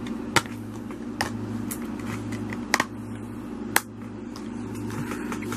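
Plastic Blu-ray case being handled and snapped shut: a handful of sharp plastic clicks, the loudest about half a second in and near four seconds, over a steady fan hum.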